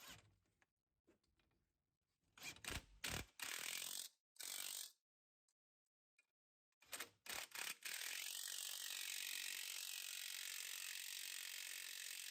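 Ratchet wrench clicking in several short bursts as the 18 mm strut bolts are run down snug. A steady hiss takes over for the last few seconds.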